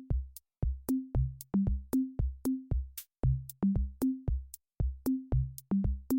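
Background music: an electronic drum-machine beat with short plucked bass and synth notes, about three to four hits a second.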